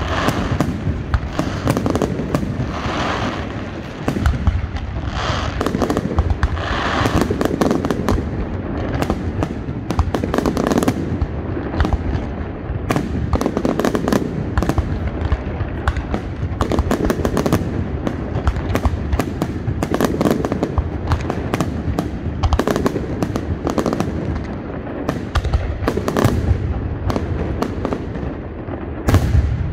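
Fireworks display: aerial shells bursting one after another in a dense, unbroken run of bangs and sharp cracks.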